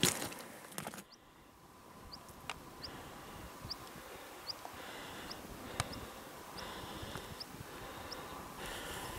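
Footsteps crunching on loose rock and gravel for about a second, then stopping. After that, a faint series of short, high chirps, about one or two a second, over light outdoor hiss.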